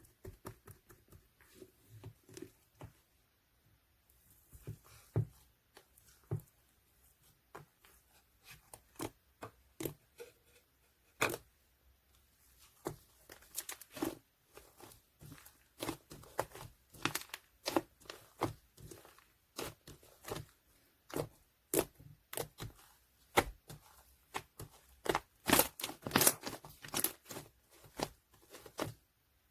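Yellow slime being pressed, stretched and poked by hand, giving irregular crisp clicks and pops that come faster and louder in the second half.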